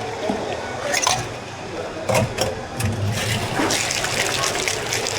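Liquid being poured into a drink cup during bubble tea preparation, with a few knocks and clinks of containers in the first three seconds, then a steady pour.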